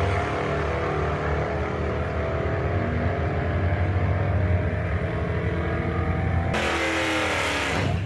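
Drag-racing cars at full throttle running down the strip, among them a Foxbody Mustang's naturally aspirated 385 cubic-inch small-block Chevrolet V8, heard as a steady engine drone. About a second and a half before the end it cuts to a much nearer, brighter engine sound whose pitch falls.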